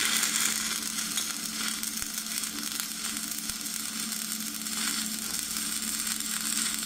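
Stick (MMA) welding arc from a 2.0 mm electrode at about 70 A on thin-walled square steel tube: a steady crackling sizzle, with a faint low hum underneath.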